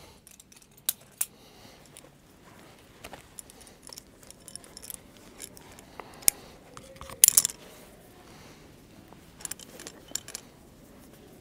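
Metal climbing hardware (carabiners and gear on the harness) clicking and jingling, handled while a prusik backup is rigged on the rope. There are scattered single clicks and one louder burst of jingling about seven seconds in.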